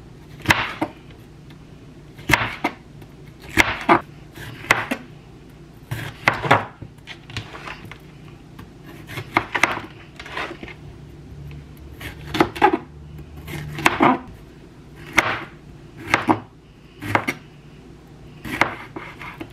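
Chef's knife slicing bell peppers into strips on a plastic cutting board, each cut ending in a sharp knock of the blade on the board, often in quick pairs, roughly one a second.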